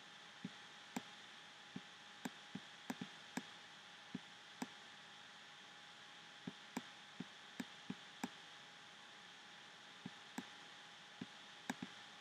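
A stylus taps on a tablet screen during handwriting: about twenty short, faint clicks in irregular runs with brief pauses, over a steady low hiss.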